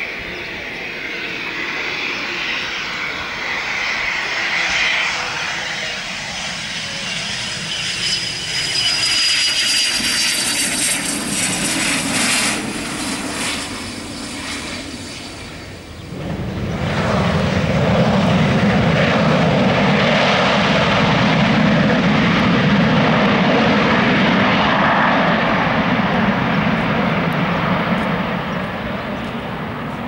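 Cessna Citation S/II business jet landing, its twin Pratt & Whitney JT15D turbofans whining on approach, with high tones falling in pitch as it passes. Just after touchdown, about halfway through, a sudden loud, rough engine roar sets in, holds for about ten seconds, then fades.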